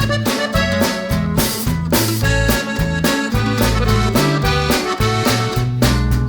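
Background music with a steady beat, a stepping bass line and sustained melody notes.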